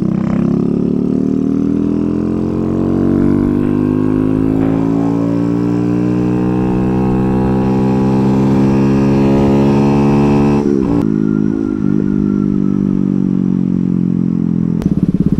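Kawasaki Z125 Pro's 125 cc single-cylinder four-stroke engine pulling under way, its pitch rising steadily for about ten seconds as the bike accelerates. The revs break and dip twice around eleven seconds in as the rider shifts up, then it runs on lower. Near the end it drops into a louder, uneven low throb.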